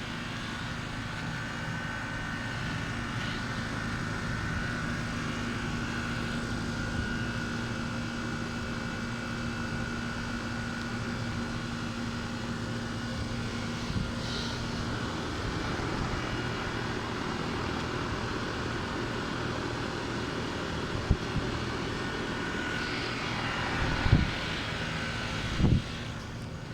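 Trane air-conditioner units running: a steady fan drone with a low hum and a higher whine. A few short thumps come near the end.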